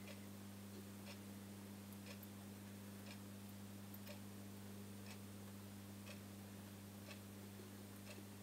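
Faint steady low hum of a small aquarium's electric filter pump, with a soft click repeating about once a second.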